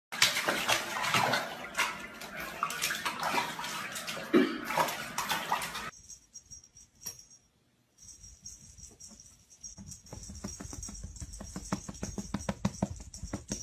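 Water splashing in a bathtub as a puppy paddles through shallow bathwater, for about six seconds. Then the splashing stops and only faint ticks and a steady high hiss remain.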